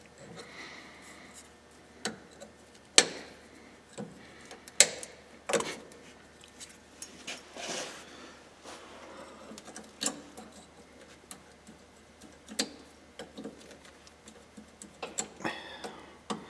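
Irregular sharp metallic clicks, a second or two apart, with light scraping between them, as a hand tool picks at a rusted cotter pin and castle nut on a worn steering drag link ball joint.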